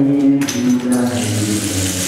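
Didgeridoo drone: a steady low buzzing tone whose overtones shift as it is played, with a hissing rush building in the second half.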